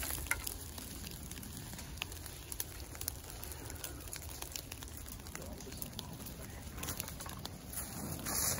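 Burning grass and brush crackling and popping in a freshly lit prescribed-burn fire line, with scattered sharp snaps over a steady low rush and a brief louder hissing burst near the end.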